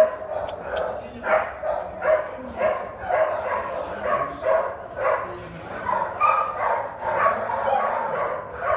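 Dogs barking and yipping over one another in quick, repeated yelps, with some whimpering.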